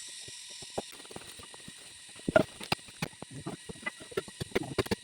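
Irregular sharp knocks and clicks, the loudest a little over two seconds in and several more close together near the end, over a steady high hiss.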